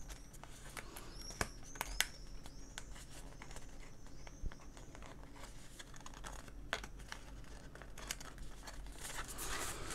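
Cardboard packaging and a paper manual being handled: scattered light taps and clicks with faint rustling, including a few sharper clicks in the first two seconds.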